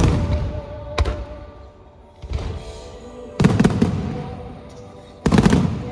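Aerial firework shells bursting overhead: a sharp bang at the start and another about a second in, then two rapid clusters of crackling bangs about three and a half and five seconds in. Music plays underneath.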